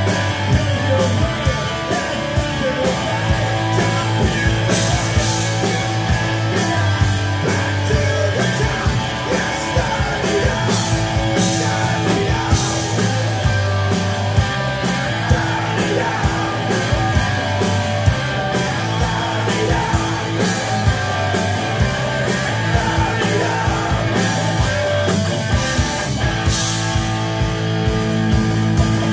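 A hard rock band playing live: distorted electric guitars, bass guitar and drum kit, loud and steady throughout.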